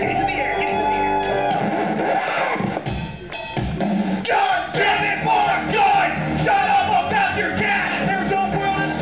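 Live rock song: men singing into microphones over music with guitar and drums. The music thins out briefly about two seconds in, then the singing comes back in over the beat.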